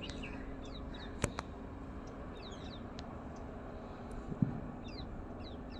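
Small birds chirping in short, high, falling notes that come in little groups, over steady outdoor background noise. A sharp click sounds about a second in and a short low thump a little after four seconds.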